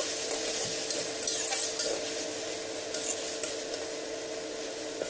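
Metal spatula stirring and scraping sliced meat around a wok while the meat sizzles in hot oil, with irregular scrapes over a steady hiss and a faint steady tone underneath.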